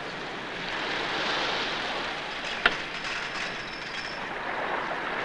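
Steady rushing outdoor noise that swells about a second in, with one sharp click a little past halfway and a faint high squeal after it.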